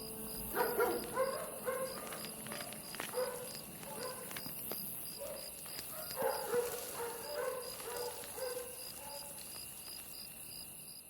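An animal giving a series of short, pitched calls in irregular clusters. Behind them runs a steady high-pitched pulsing, about three pulses a second.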